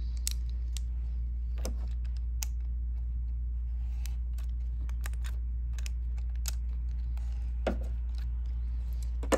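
Light plastic clicks and taps from handling a plastic machine-embroidery hoop and its clamp, scattered through, with a few sharper clicks near the end, over a steady low hum.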